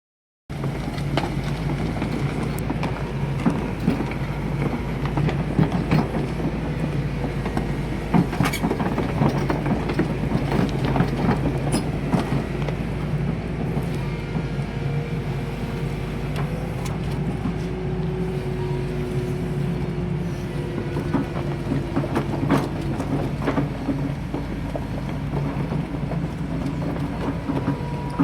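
Kobelco SK220 hydraulic excavator working: its diesel engine running steadily, with repeated sharp metallic clanks and knocks scattered throughout and a faint whine drifting in pitch around the middle.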